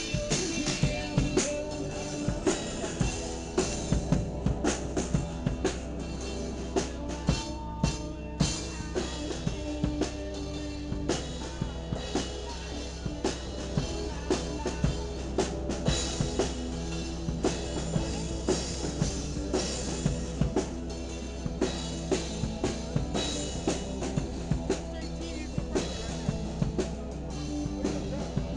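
Background music with a drum-kit beat under held pitched instrument notes.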